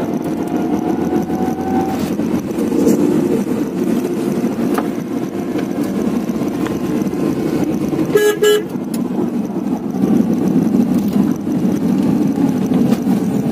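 A Tata Nano's rear-mounted two-cylinder engine and road noise, heard from inside the cabin while driving, as a steady low rumble. About eight seconds in, a car horn gives a short toot.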